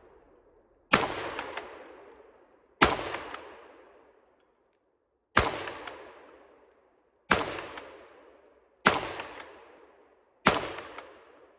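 A Tokarev TX3 Hammer pump-action 12-gauge shotgun fires birdshot six times, about one and a half to two and a half seconds apart. Each shot has a long, echoing tail, with the clack of the pump being worked between shots.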